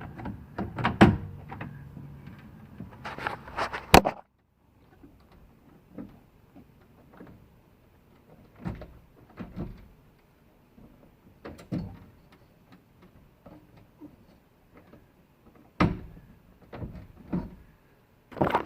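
Metal clicks, clunks and knocks of window regulator hardware being handled and fitted inside a car door. A busy run of knocks at first, then the sound drops away suddenly about four seconds in, and single knocks follow every second or two.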